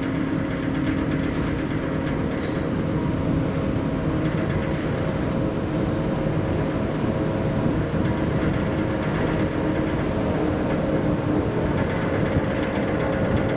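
Steady drone of a car ferry under way: a constant low hum under a steady rushing noise.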